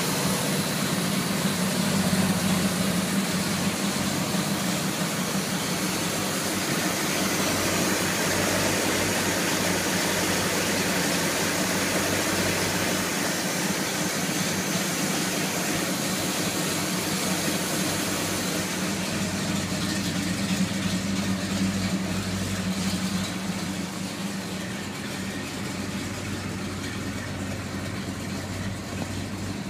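1972 Chevrolet Chevelle's LS5 454 big-block V8 idling steadily. The sound turns a little duller in the last third, once it is heard from inside the cabin.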